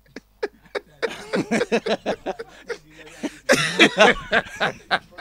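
A few short clicks, then a person laughing in broken bursts with coughs mixed in.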